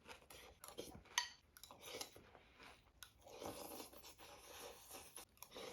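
Faint crunching and chewing of Wheaties cereal flakes, a string of short crisp crunches.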